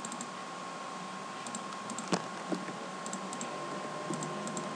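Light clicks of a computer mouse and keyboard, coming in small scattered clusters, with one sharper click a little past halfway. Underneath is a steady hiss and a faint steady tone.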